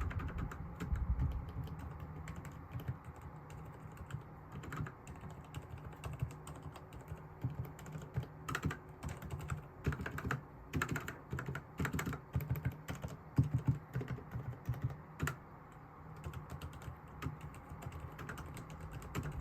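Typing on a Hansung computer keyboard: keystrokes clacking in irregular runs, busiest in the middle and sparser near the end.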